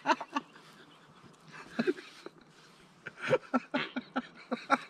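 Men laughing helplessly in breathy, wheezing gasps: a few pulses at first, a pause, then a renewed run of gasping laughter in the last second and a half.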